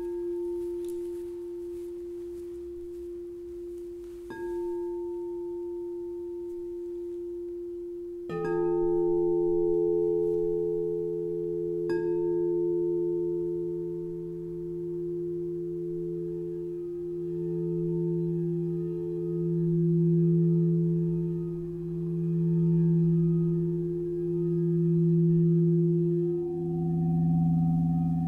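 Himalayan metal singing bowls struck in turn with a padded mallet, about every four seconds at first, each ringing on in a long steady tone that overlaps the next. The deepest tone swells and fades in a slow pulse about every two and a half seconds, and another bowl is struck near the end.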